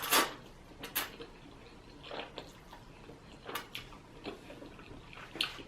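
Close-up eating sounds of spaghetti being eaten: a few short clicks and scrapes of a fork on the plate and wet chewing sounds, spaced a second or more apart.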